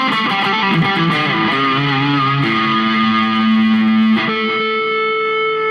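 Slimline Telecaster-style electric guitar with P90 pickups played with overdrive: a quick run of notes with bends, then held notes ringing out, the last one sustained from about four seconds in.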